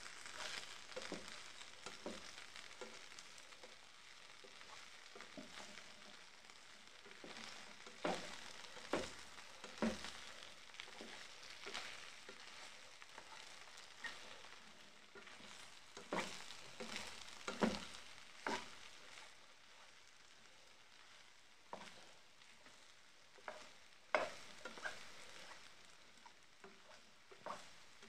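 Diced potatoes sizzling in oil in a deep pan, with a plastic spatula scraping and knocking against the pan in several bouts as they are stirred and turned.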